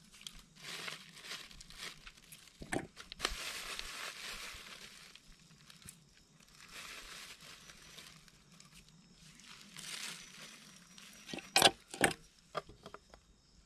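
Intermittent crinkling and rustling of something being handled, in several short bursts, followed by two sharp clicks close together near the end.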